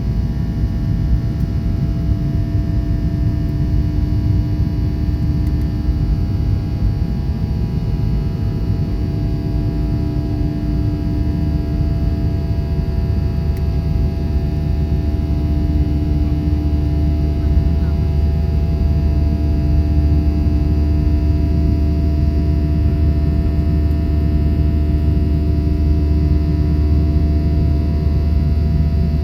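Boeing 737-800's CFM56-7B turbofan engines running steadily: a deep rumble under several steady whining tones, the low rumble growing a little stronger partway through.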